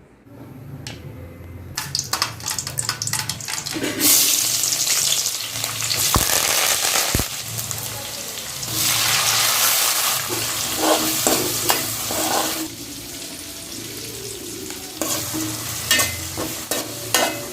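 Food frying in hot oil in a pan, sizzling as it is stirred, with the clicks and scrapes of a spoon against the pan. The sizzling swells sharply about four seconds in and again around nine seconds.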